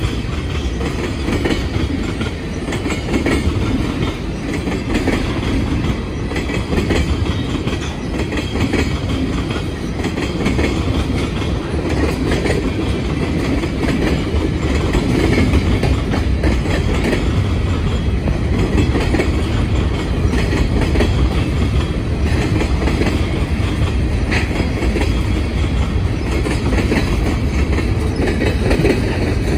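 Freight train's cars (tank cars, covered hoppers, a coil car and gondolas) rolling past close by: a steady rumble of steel wheels on rail with a running clickety-clack over the rail joints.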